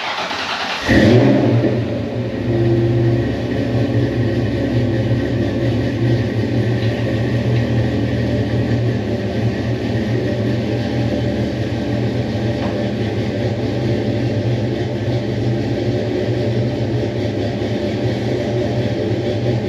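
Fox-body Mustang 5.0 V8 starting about a second in, then idling steadily.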